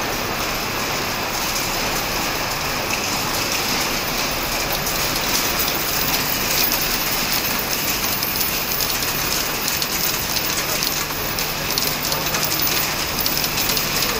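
Steady factory-floor machinery noise from working presses and vibratory bowl feeders: a dense, continuous patter of many small metallic ticks over a faint low hum.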